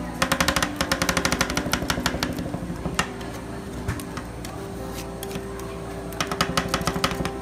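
Two metal spatulas rapidly chopping ice cream mix on a frozen steel cold plate: a fast run of sharp metal-on-metal clicks for about two seconds, and another short run near the end.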